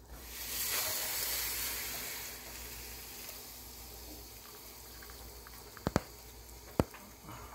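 Wet, freshly rinsed rice tipped from a colander into a hot pot of melted butter, a hiss of sizzling that comes in at once and slowly fades. Two sharp clicks near the end.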